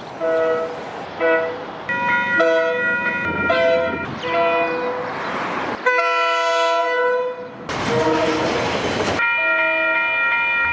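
Train horns: a quick succession of chord blasts from different locomotives, each cut off abruptly after one to two seconds, with rushing train noise under some of them.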